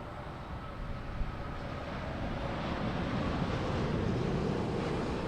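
Boeing 787-9 Dreamliner jet airliner with Rolls-Royce engines on low final approach, its engine noise growing louder as it nears, a rushing roar with a faint steady whine.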